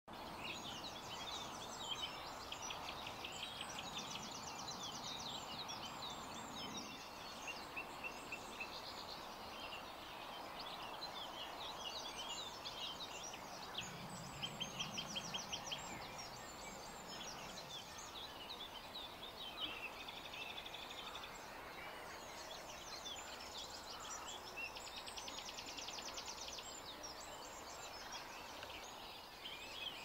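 Several songbirds singing at once, with many overlapping warbling phrases and fast rattling trills, over a steady background hiss.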